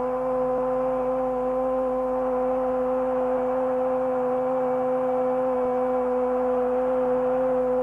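A football commentator's drawn-out goal shout, one voice held on a single steady note over the steady noise of a stadium crowd.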